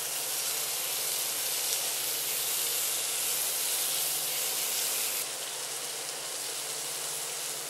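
Tomato wedges, onion and leeks sizzling in oil in a nonstick frying pan: a steady frying hiss that eases a little about five seconds in.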